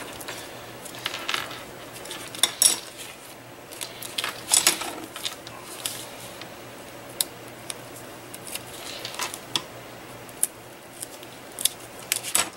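Bone folder rubbing over paper tabs to burnish score tape down: several short scrapes in the first half. Later come a few sharp clicks and taps as tools are set down and picked up on the cutting mat.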